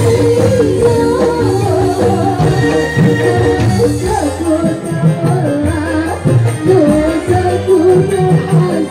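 Live jaranan (kuda lumping) ensemble music: a wavering melody line over steady, repeating percussion that never pauses.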